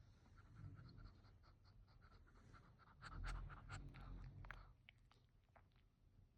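Sleeping chihuahua breathing faintly between snores: a soft run of small clicks and snuffles, loudest about halfway through, then fading.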